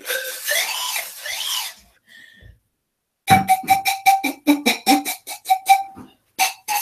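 Wooden pan flute (pan pipes) blown: first a breathy, airy sound, then after a short pause a quick run of short staccato notes, about six a second, mostly on one pitch.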